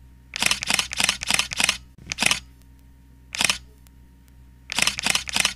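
Hands sloshing and scrubbing raw pork in water in a plastic basin and bag: short splashy bursts in quick runs of three or four, with short pauses between the runs.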